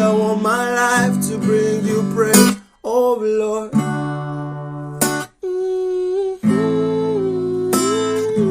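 Acoustic guitar strumming chords under a held, wavering melody line, in a worship song. The music drops out briefly twice, once about two and a half seconds in and again about five seconds in.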